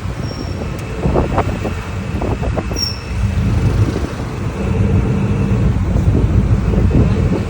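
An engine running steadily with a low rumble, under some rustling noise.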